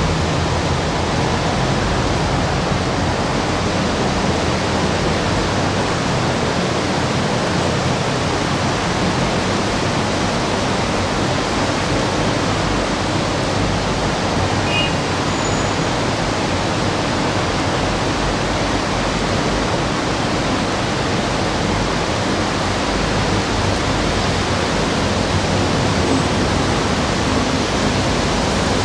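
Steady, loud rushing noise that holds level without change, with a low rumble underneath.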